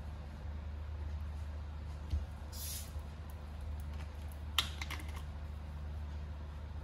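A green glass bottle of sparkling water being opened: a soft knock, then a short hiss of escaping gas. About two seconds later comes a quick run of sharp clicks, over a steady low hum.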